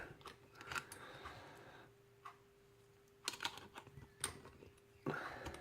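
Light, scattered clicks and ticks of small metal lock-picking tools handled against a wafer lock, with a quick cluster of clicks about three seconds in.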